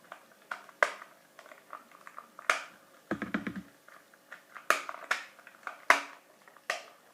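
Plastic shell halves of a PS3 controller being pressed and snapped together by hand: a series of sharp plastic clicks, about six of them, coming closer together in the second half as the casing clips home.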